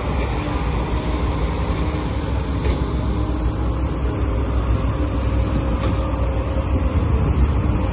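A steady low mechanical rumble of a running engine or motor, even throughout with no breaks.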